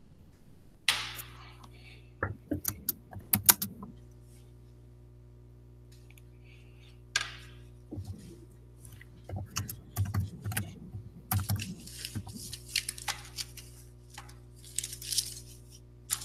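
Scattered clicks, taps and rustling of small objects being handled, in irregular clusters over a steady low hum.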